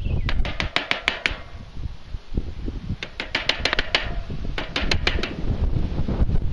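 Metal utensil clinking and scraping against a pan while stirring vegetables, in three bursts of quick clicks, over a low rumble of wind on the microphone.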